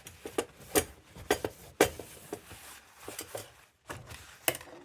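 Irregular sharp clicks and knocks of a steel hot-blast lantern's parts being handled, about five light metallic taps spread over a few seconds.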